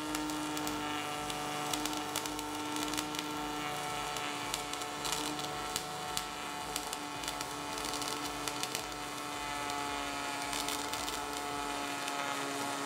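Welding arc crackling and spitting sparks, with many irregular snaps over a steady hum.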